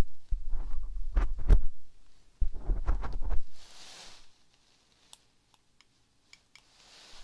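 Close-miked ASMR handling sounds: muffled low thumps and crackling rubs for the first few seconds, then a soft hiss and a few faint ticks.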